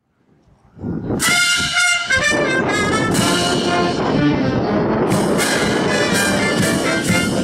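After a brief silence, a military brass band plays a march: held brass chords, joined about halfway by a steady drum beat of about two beats a second.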